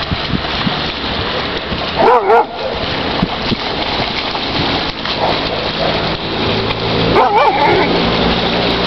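A dog whining twice, short wavering cries about two seconds in and again near the end, over a steady hiss of noise.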